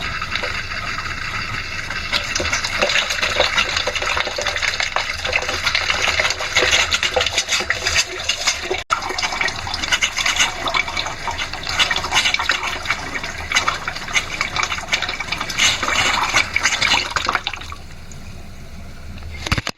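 Water spluttering and spitting from a sink tap, with air still in the newly refitted pipes coming through with the flow. It quietens a little near the end.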